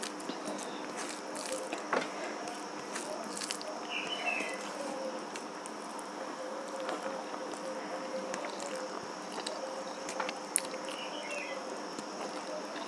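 Fingers mixing rice with dal and curry on a steel plate, with scattered sharp clicks against the metal, the loudest about ten and a half seconds in. Under it, the steady hum and whine of a running electric fan, and a short chirp about every six seconds.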